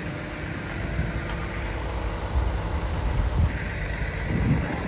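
Steady low rumble of a vehicle on the move, with some wind noise on the microphone.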